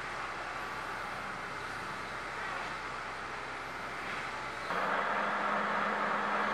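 Steady running of heavy diesel works vehicles: a lorry-mounted crane's engine, then a sudden step up to a louder, steady engine hum with a low drone about three-quarters of the way in, from a Volvo heavy-haulage lorry.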